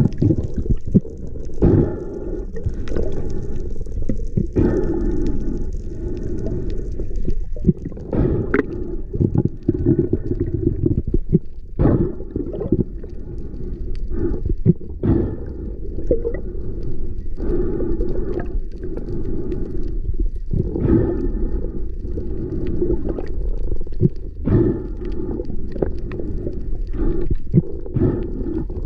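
Muffled underwater sound picked up through a waterproof camera housing: a steady low rumble of moving water, with scattered clicks and knocks throughout.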